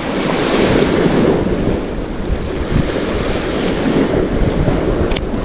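Waves washing against the shore with wind buffeting the microphone, a steady rushing noise, with a couple of short clicks near the end.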